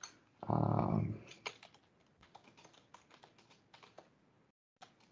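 Computer keyboard keystrokes, light and irregular, as a terminal command is typed. A short low voiced sound comes about half a second in and is the loudest thing, and the sound cuts out abruptly near the end.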